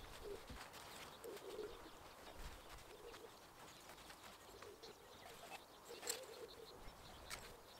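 Faint garden ambience with a pigeon cooing in short repeated phrases, and a few faint clicks.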